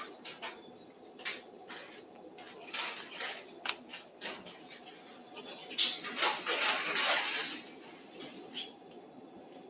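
Steel surgical instruments (forceps and hemostats) clicking and clinking, with scattered sharp metallic clicks and a few short stretches of softer noise between them.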